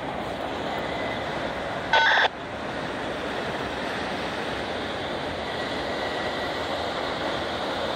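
Norfolk Southern freight cars rolling past on the rails, a steady wheel noise throughout. About two seconds in, a single short, loud electronic beep cuts in for about a third of a second.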